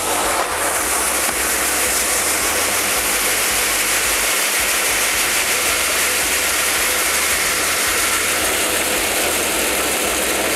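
GEPETTO seed treater running steadily, its motor-driven spinning disc rattling treated soybean seed as it discharges from the bottom outlet into a plastic sack. A constant low hum sits under the dense rattle.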